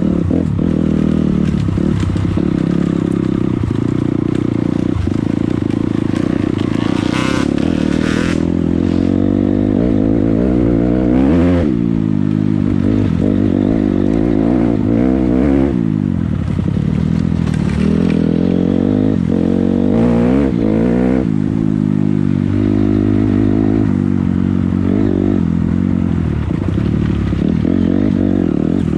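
Dirt bike engine running under load as the bike is ridden, its pitch rising and falling repeatedly with throttle and gear changes.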